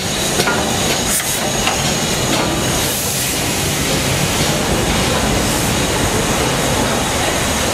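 LMS Black Five 4-6-0 steam locomotive rolling slowly into the platform close by, a steady rumble of its wheels and escaping steam.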